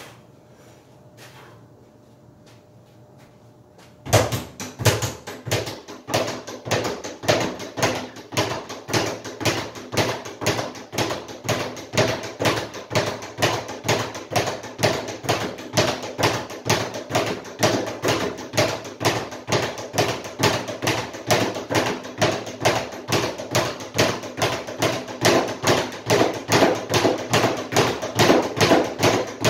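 Speed bag being punched and rebounding off its overhead rebound platform: a fast, regular rhythm of taps and thuds that starts about four seconds in.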